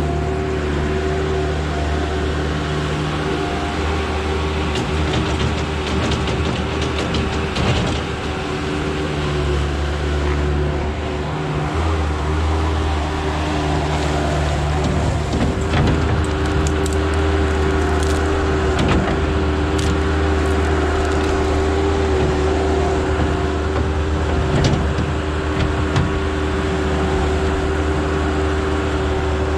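Bobcat S185 skid steer loader's diesel engine running steadily under load as it drives in, with scattered cracks and snaps of brush and roots as the bucket pushes into the ripped-out hedges in the second half.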